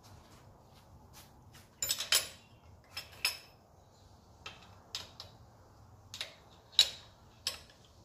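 Sharp metal clicks and clinks, about nine at irregular intervals, of hand tools being handled against metal engine parts, a steel vernier caliper being brought up and set in place among them.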